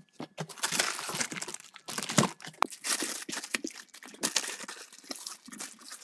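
Packaging being handled: a foam packing insert and wrapping rustling and crinkling in irregular bursts, with scattered small knocks, as a speaker driver is unpacked from its cardboard box.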